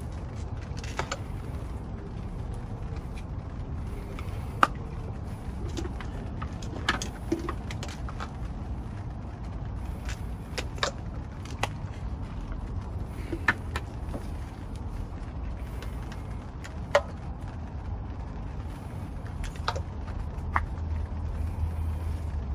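Spark plug wire boots being handled and pushed down onto the plugs in the valve cover's plug wells: about a dozen short plastic clicks and snaps at irregular intervals, the sharpest about four and a half seconds in, over a steady low background rumble.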